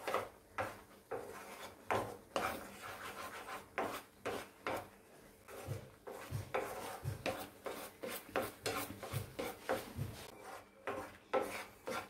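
Wooden spatula stirring and scraping thick mango pulp around a nonstick frying pan: a steady run of short scraping strokes, two or three a second.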